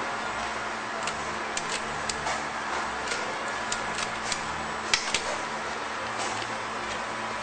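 Paper and a cardboard flower box being handled on a packing table: scattered clicks and rustles, the sharpest about five seconds in, over a steady hum.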